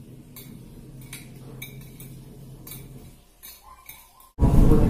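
Spoon and fork clinking and scraping against plates while instant fried noodles are mixed, a few sharp clinks at a time over a steady low hum. About half a second before the end a much louder sound cuts in suddenly.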